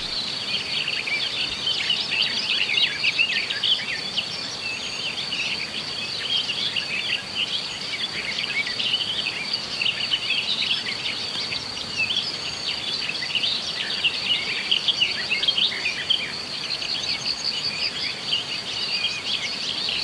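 Summer meadow ambience: a steady high insect trill with many small birds chirping over it.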